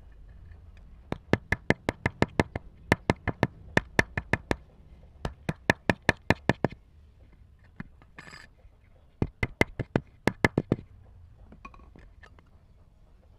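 Ball-peen hammer tapping a small brass disc on a wooden block, in quick runs of light blows, several a second, each with a short metallic ring. The blows stop for about two seconds past the middle, with a brief scrape, then one last run follows.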